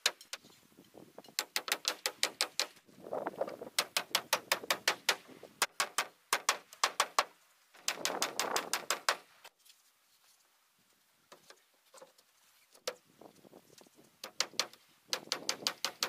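Hammer driving nails into wooden wall cladding boards: bursts of quick, sharp blows, several a second, with a lull of a few seconds in the middle broken by a few single taps before the hammering starts again near the end.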